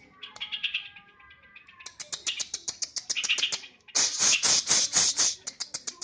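Caged yellow-vented bulbul (cucak trucukan) singing a fast, chattering run of notes, loudest for about a second around four seconds in.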